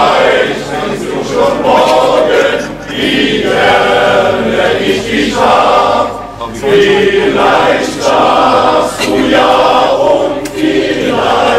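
Men's choir singing together in sustained phrases, with brief breaks between phrases about every three to four seconds.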